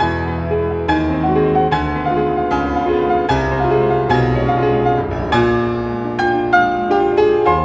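Background piano music: notes struck and decaying in a steady melodic line over sustained bass chords.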